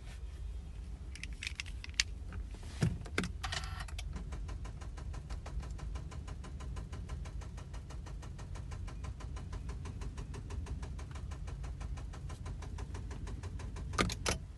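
A 2019 Honda Civic that won't start: instead of the engine cranking, a rapid, even clicking, several clicks a second, runs for about ten seconds. A few sharp clicks and a thump come before it, and two more sharp clicks near the end.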